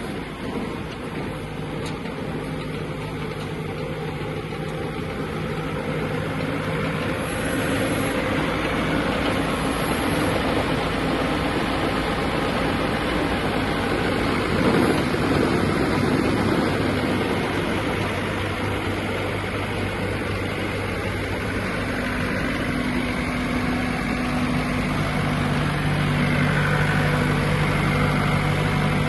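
Diesel engine of a Wirtgen W500 cold milling machine running steadily under a broad rushing noise. Its low engine tone fades for a while mid-way and comes back stronger near the end.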